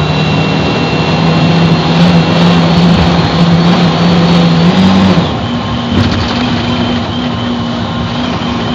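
Mercedes-Benz OF-1724 bus's OM 926 LA inline-six turbodiesel running under load, a steady note growing louder. About five seconds in, it drops in level and settles on a different steady note.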